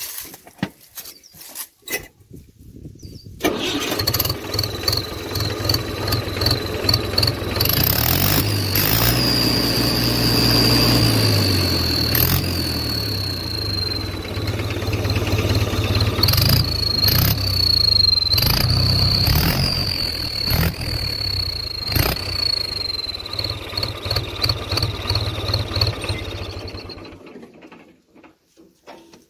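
Mahindra tractor diesel engine running with a turbo-sound whistle fitted in its exhaust pipe. The engine cuts in about three seconds in. The whistle gives a high tone that chirps in quick pulses at idle, rises in pitch as the engine is revved, then settles back. The engine stops shortly before the end, and the whistle is still too loud at this setting.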